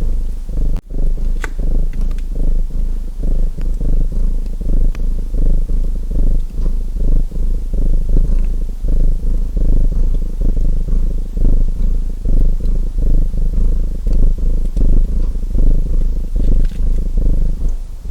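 Domestic cat purring close to the microphone in a steady, rhythmic rumble, with a few faint crackles and pops from a wood fire. The purr cuts out for an instant about a second in.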